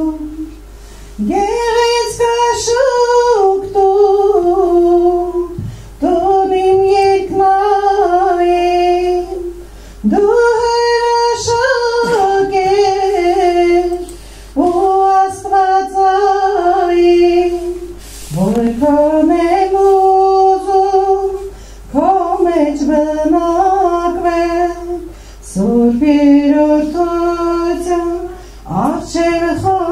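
A woman singing a hymn solo into a handheld microphone in long, held phrases of a few seconds each, most opening with an upward slide in pitch, with short breaks between phrases and no accompaniment heard.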